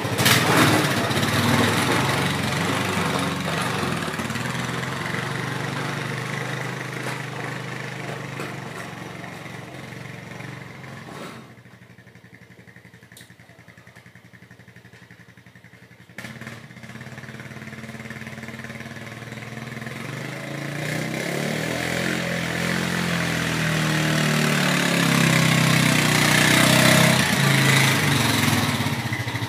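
A small engine running, loud at first and fading away. It drops out sharply about 11 seconds in, comes back abruptly about 16 seconds in, and grows louder again toward the end.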